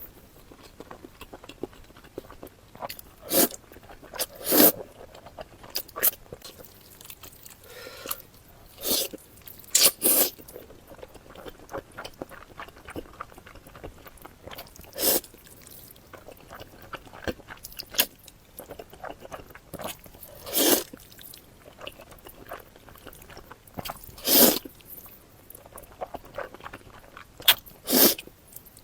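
Close-miked eating: chewing with about ten sharp, loud crunching bites at irregular intervals a few seconds apart, and quieter mouth clicks in between.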